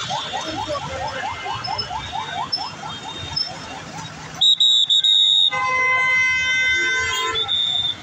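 Road vehicle horns in street traffic. For the first two and a half seconds or so, a siren-like signal repeats quick rising whoops, about four a second. About four and a half seconds in, loud horn blasts start: a high blast broken three times, then a long chord of several notes held for about two seconds, then a short high blast again.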